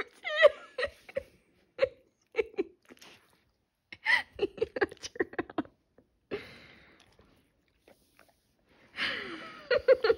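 A dog chewing and mouthing a raspberry, a run of short wet clicks and smacks in quick trains, with a voice breaking in briefly near the end.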